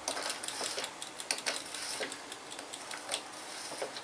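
Socket ratchet clicking in a run of rapid light ticks as the 14mm nut holding a bicycle crank arm is wound off, with a few louder clicks among them.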